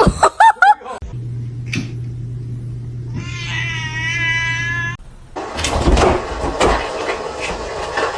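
Cat meowing: a few short rising-and-falling meows at the start, then one long wavering yowl about three seconds in. From about five seconds on, a noisy stretch of rustling and knocks follows.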